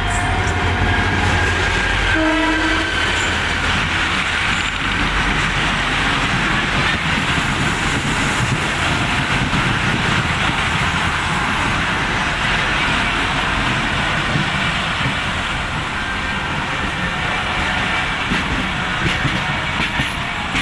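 Pakistan Railways diesel locomotive running past with its engine rumbling and a horn sounding in the first couple of seconds. Its passenger coaches then roll by with a steady, even noise of wheels on the rails.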